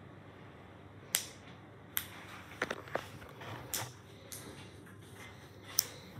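A reusable click-disc heat pack being bent and squeezed by hand: several sharp clicks and cracks at irregular intervals, with faint crinkling of the plastic pouch between them.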